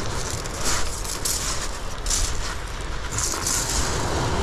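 Wind buffeting the microphone in a steady low rumble, with short bursts of hiss about five times.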